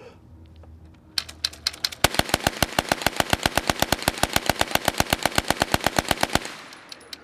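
Tippmann TG-900 hand-cranked 9mm Gatling gun firing: a few lighter clicks, then a fast, evenly spaced string of shots for about four seconds that stops abruptly.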